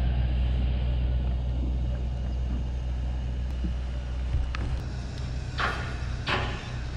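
A fishing rod swishing through the air on a cast, twice in quick succession about five and a half seconds in, over a steady low rumble.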